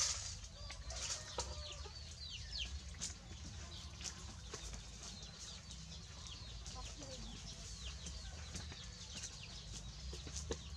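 Chickens peeping: many short, high calls sliding downward in pitch, several a second, over a low steady hum.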